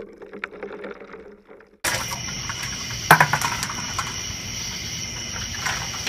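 Ice water sloshing in a plastic bucket as it is handled and lifted, with a few small clicks early on and one sharp knock about three seconds in. A steady high-pitched hiss runs under the second half.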